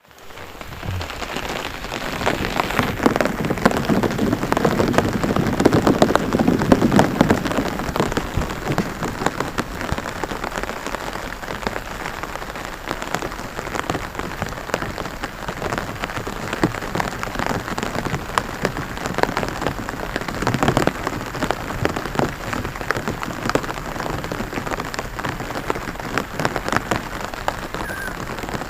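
Rain pattering on a rice paddy: a dense, continuous patter of drops, heaviest a few seconds in and then steady.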